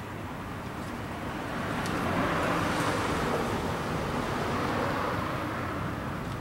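A car driving past, its rushing tyre and engine noise swelling about two seconds in and fading near the end.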